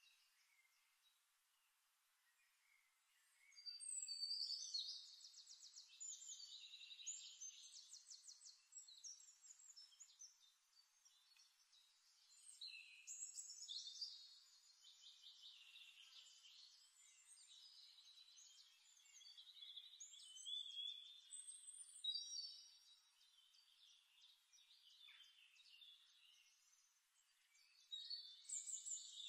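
Faint, high-pitched birdsong from several songbirds, chirping and trilling. It starts a few seconds in, and rapid trills come and go.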